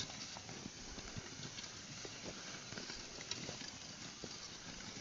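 Faint, irregular hoof steps and knocks of a team of oxen pulling a plow.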